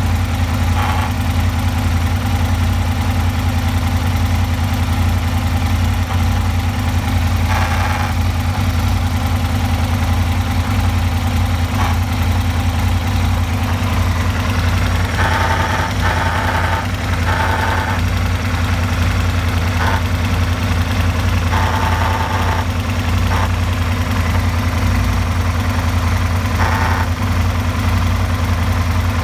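Aprilia RSV motorcycle engine idling steadily. A brief, higher-pitched noise comes and goes over it several times, which the owner finds strange.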